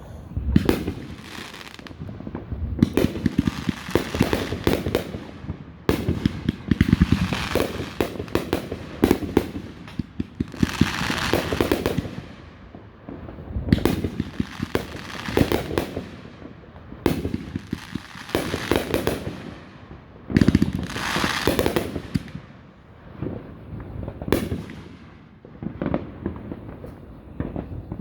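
Aerial fireworks display: shells bursting one after another, a new loud boom every two to three seconds, each followed by dense crackling that fades out.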